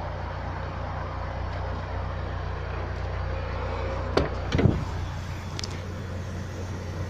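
UAZ Patriot idling steadily with the air conditioning running, a low steady hum. A couple of short knocks sound a little over four seconds in.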